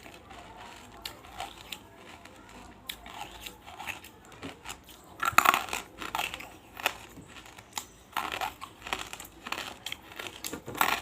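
Close-miked crunching of banslochan (tabashir, bamboo silica) pieces being eaten: irregular crackly crunches and small mouth clicks, with the loudest burst of crunches a little past halfway.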